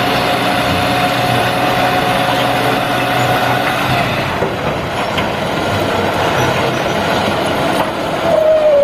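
Light dump truck's diesel engine running while the bed tips and a load of soil slides out. A steady whine sounds over the engine for the first four seconds, and a short falling squeal comes near the end.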